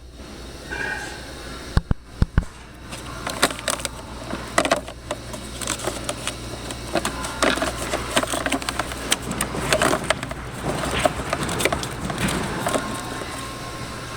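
Hands working on a car's cabin air filter and its plastic housing: irregular clicks, taps and rustling.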